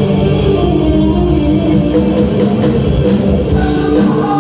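Live band playing loudly through a PA system, a singer's voice over a steady drum beat and bass.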